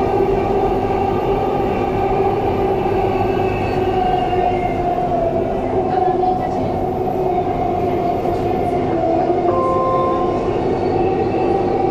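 Dubai Metro train running on its track, heard from inside the car: a steady rumble of wheels on rail under a humming whine that drifts slightly in pitch. A short beep-like tone comes about ten seconds in.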